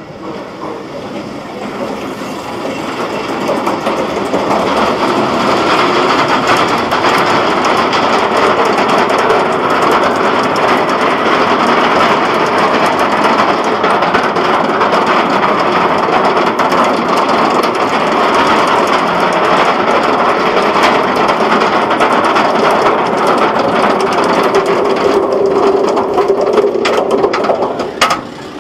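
B&M wing coaster train running the course at speed: a loud, steady rush of wheels on the steel track and wind. It builds over the first few seconds and drops away with a few sharp clicks near the end.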